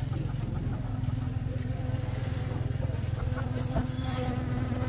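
Small engine idling steadily, a low hum with a fast buzzing pulse, with a light knock a little before the end.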